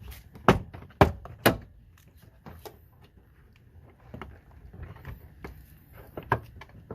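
Plastic retaining clips of a car door trim panel snapping loose as the panel is pulled off: three sharp snaps about half a second apart, then quieter clicks and plastic knocks.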